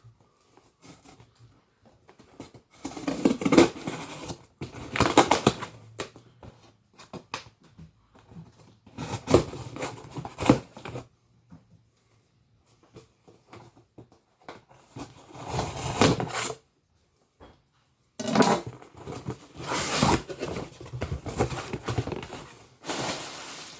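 A cardboard shipping box being cut open with a knife and unpacked: irregular bursts of scraping, tearing and rustling of cardboard and packing material, with short quiet pauses between.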